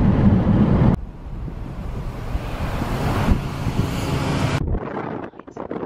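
Road and wind noise from a Mercedes-Benz car driving: a loud low rumble that cuts off abruptly about a second in and gives way to a softer, steady rush, then turns quieter and choppy, like gusts of wind on the microphone, near the end.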